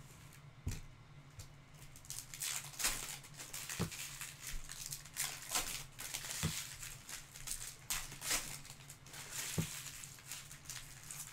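Stiff glossy trading cards being handled: a stack of Topps Chrome soccer cards sliding and swishing against each other in the hands, with a few soft knocks against the table.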